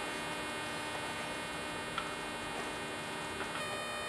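Steady electrical hum with a few faint, light clicks; the hum's tone shifts slightly near the end.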